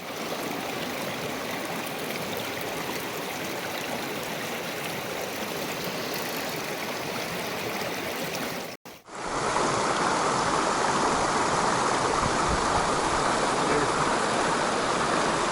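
Mountain stream water rushing steadily. About nine seconds in, the sound cuts out for an instant and comes back louder.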